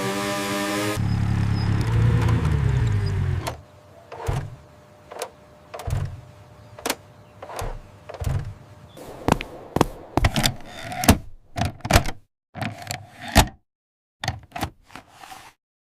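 A small motor-scooter engine sound effect running and winding down, its pitch falling. It is followed by a string of separate sharp clicks and knocks that come faster and faster, with brief silences between them near the end.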